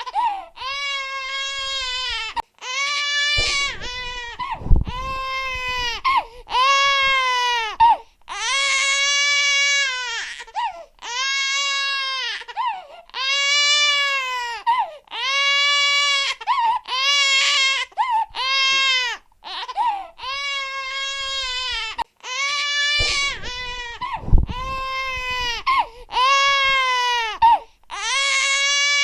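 Infant crying hard: a string of loud, high-pitched wails, each one to two seconds long with short breaths between. A low thump sounds twice under the crying.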